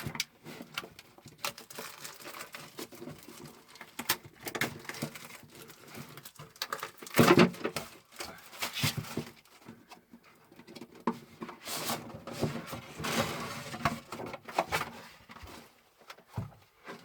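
Packaging of a Pokémon trading-card box being unwrapped and opened by hand: irregular rustling, crinkling and light taps of plastic and cardboard, with the loudest rustle about seven seconds in.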